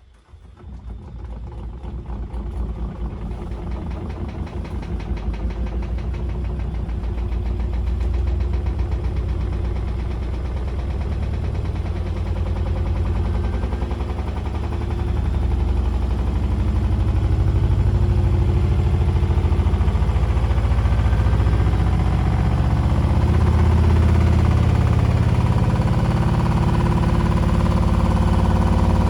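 Beko washing machine running an unbalanced spin with three dry towels in the drum. The drum rumbles and knocks as it picks up speed, growing steadily louder over the first several seconds and then building more slowly. Its shock absorbers have just been softened with washing-up liquid, and the spin tests them.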